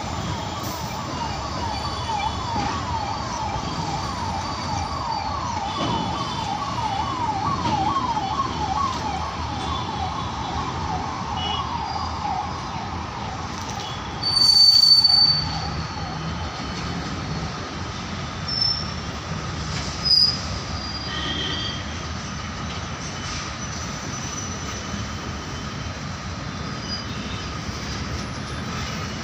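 Twin WAG-7 electric locomotives hauling a goods train past, then the freight wagons rolling by: a steady rumble of wheels on rail. A fast repeating up-and-down whine runs through the first half, and a short, loud, high squeal comes about halfway, with two shorter ones a few seconds later.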